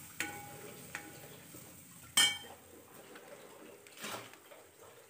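Steel ladle scraping and clinking against a metal kadhai while stirring chilli powder into a thick onion-tomato masala. There are three ringing clinks; the loudest comes about two seconds in.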